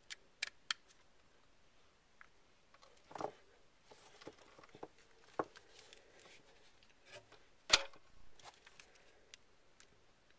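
Faint clicks and handling noises from a small plug being pushed into a handheld digital voice recorder's jack and the recorder and cords being moved about. The loudest, sharpest clack comes about three-quarters of the way through, as the telephone handset is lifted off its cradle.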